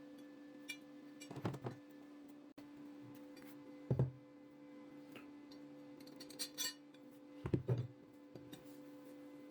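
Metal clamp parts knocked and clinked together by hand: four separate knocks with a short ring, and a quick run of bright metallic clinks a little past the middle.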